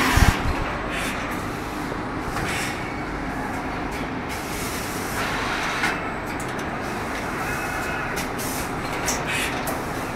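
Automated paper-sack packing machine running, its pneumatic cylinders letting off short hisses of compressed air at irregular intervals over a steady machine din.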